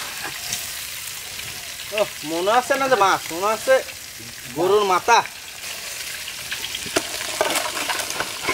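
Hot oil sizzling steadily as pieces of a large fish head deep-fry in an iron karahi. A person's voice comes in twice in the middle, and there are a couple of light knocks near the end.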